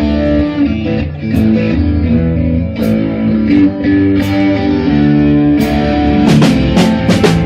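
Live band playing: electric guitar over a bass line, with a cluster of sharp hits near the end.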